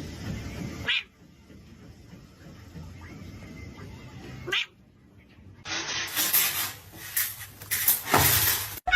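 Cat vocalizing across a few short clips. In the second half there is a loud, even rushing noise lasting about three seconds, which stops abruptly.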